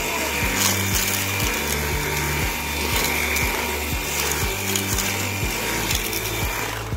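Dyson cordless stick vacuum running as it sucks up crumbs from a laminate floor: a steady rush of air with a high motor whine, cutting off near the end. Background music with a steady beat underneath.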